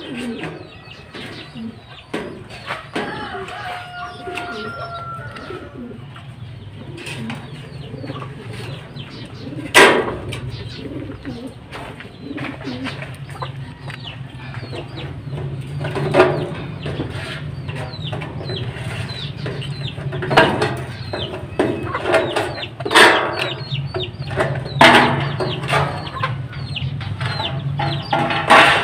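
Scattered taps, scrapes and a few sharp knocks from work on a galvanized metal gutter as sealant is pressed into its corner joint with a stick. Birds call in the background.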